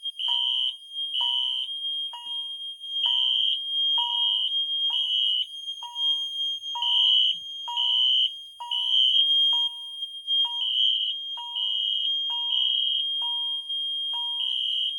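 Fire alarm notification appliances sounding together: a Wheelock MIZ-24 horn strobe giving a steady high-pitched horn tone, a Siemens horn strobe pulsing in a code-three pattern, and a Cerberus chime striking repeatedly about twice a second.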